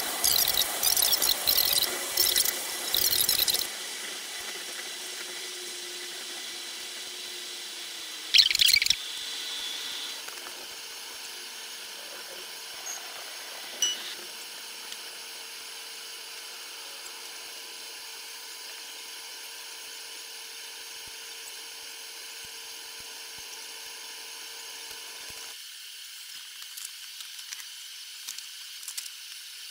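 Train running sound from a locomotive camera, played back ten times too fast, so the rail noise comes out as a high, hissing, drill-like whine with steady tones. It is loud and choppy for the first few seconds, has a short loud burst about eight seconds in, then settles into a quieter, steady hiss.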